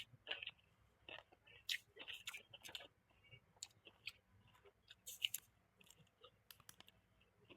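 Close-miked chewing of food, with many short wet mouth smacks and clicks at an irregular pace.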